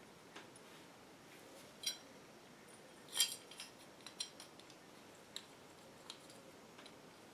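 Small metal revolver parts clicking and clinking against each other as they are handled and fitted together: a handful of light, separate clinks, the loudest about three seconds in.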